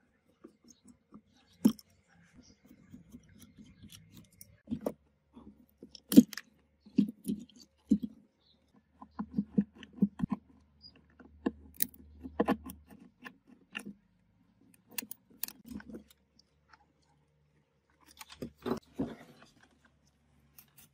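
Hand screwdriver backing screws out of a speaker cabinet's particle-board panels and crossover board: irregular clicks, creaks and scrapes, with a few sharp knocks of tools and parts.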